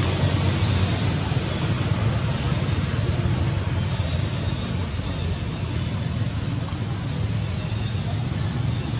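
Steady outdoor background noise: an even low rumble with a hiss over it, and no distinct calls or events.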